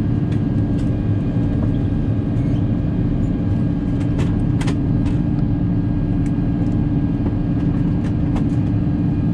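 Steady low cabin drone inside an Airbus A350-1000 airliner, with a faint steady whine and a few light clicks.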